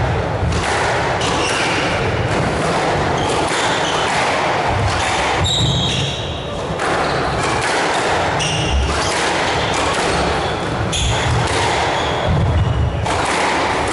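A squash rally: the ball is struck by the rackets and thuds off the court walls again and again, with shoes squeaking briefly on the court floor now and then.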